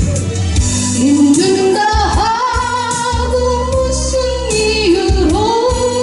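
A woman singing a slow melody into a microphone, her voice gliding between notes, over backing music with a steady low bass.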